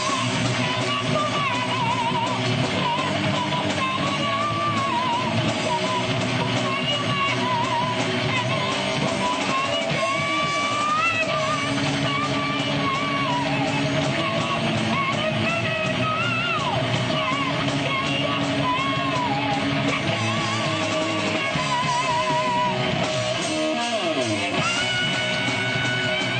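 Live rock band playing loud with electric guitars and drums, and a singer yelling over them.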